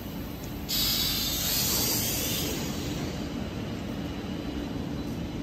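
Compressed air hissing from the radiator water-test rig's air line. It starts suddenly about a second in, is strongest for about two seconds, then eases, over a steady low factory rumble.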